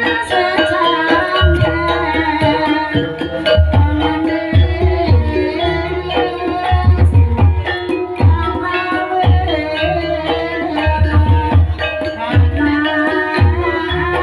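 Javanese gamelan music, with kendang hand-drum strokes over sustained pitched tones.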